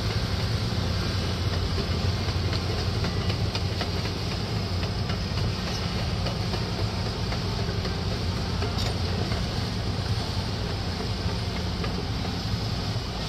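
An engine running steadily with a low, even hum under a constant hiss.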